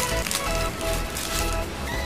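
Background music of plain held notes, with a few soft handling clicks near the start.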